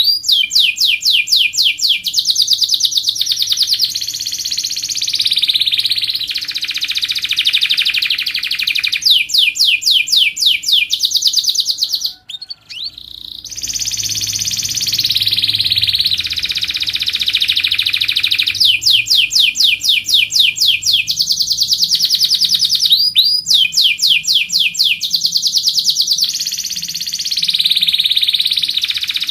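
Canary singing a long, loud song of fast trills of rapidly repeated notes alternating with held and sliding whistles, breaking off briefly a little before halfway and then starting again.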